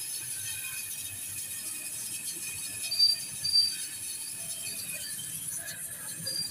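Brazing torch flame hissing steadily as it heats a copper refrigeration-line joint. Two brief high squeaks come about three seconds in.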